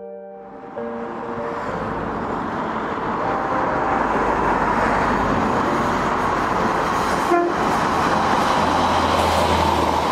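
Diesel multiple unit approaching and passing close by: a rising rush of wheels on rail with a low engine rumble, plus a brief horn toot about seven seconds in.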